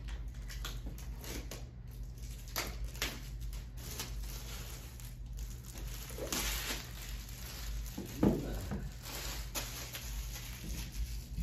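Clear plastic wrap rustling and crinkling as a cardboard cue box is handled on a pool table, with scattered light clicks and one dull thump about eight seconds in. A steady low hum runs underneath.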